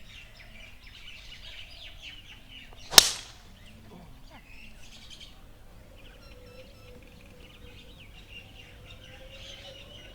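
A golf club strikes a ball once, about three seconds in: a single sharp crack, by far the loudest sound. Small birds twitter throughout.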